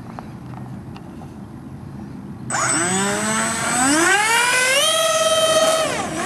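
Ducted-fan motors of a radio-controlled A-10 model jet throttling up for a takeoff run: a whine that starts suddenly about two and a half seconds in, climbs in pitch to a steady high whine at full power, then drops near the end.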